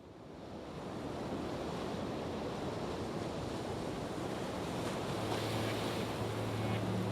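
A steady rushing noise, like wind or surf, that swells up over the first second and then holds. A low steady tone comes in about five seconds in and grows louder toward the end, leading into music.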